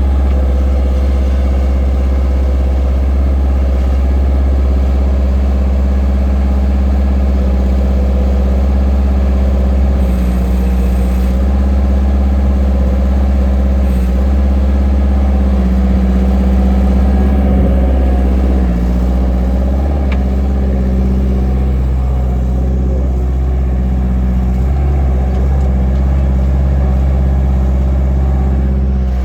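Bobcat 753 skid steer's diesel engine running steadily, its note shifting slightly a few times.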